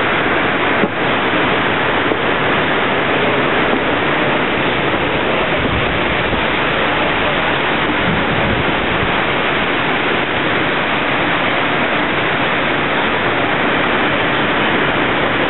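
Hot-spring water rushing steadily through the wooden channels of the Yubatake and splashing down at their end, a loud, even noise.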